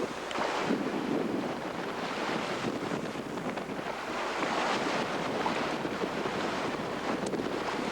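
Strong wind buffeting the microphone over the rush and splash of big waves around a sailboat running fast in rough open sea, the noise swelling and easing as the seas pass.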